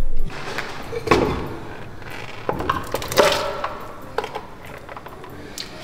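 A few light clicks and clinks of a ceramic lid on a clay pot, as the lid is handled and lifted off the pot of cooking rice porridge. A faint steady hiss runs under them.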